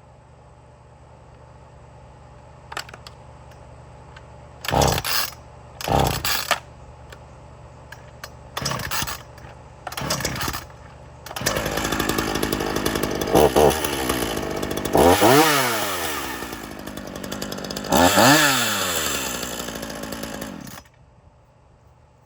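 Two-stroke gas chainsaw idling, with a few short blips of the throttle. It is then run up to higher speed and revved up and down twice before being shut off near the end.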